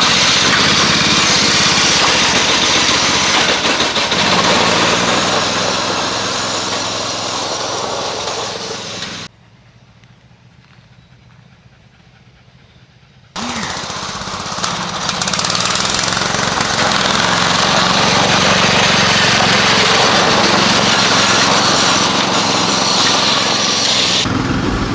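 Modified riding lawn mower engine running hard at high throttle, loud and noisy. About nine seconds in it drops away suddenly to a faint background for about four seconds, then comes back just as loud.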